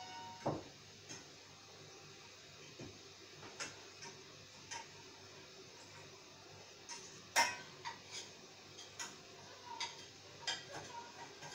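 Faint, scattered light clicks and taps of a small plate and fingers being handled while grated chocolate is sprinkled by hand onto a cake, the sharpest click about two thirds of the way through.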